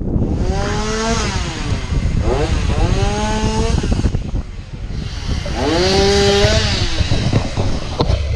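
Chainsaw revving up three times, its pitch climbing and then dropping with each burst.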